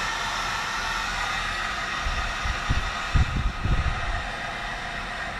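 Electric heat gun blowing steadily, shrinking adhesive-lined marine heat shrink over a crimped lug on a heavy battery cable. A few low thumps come in the middle.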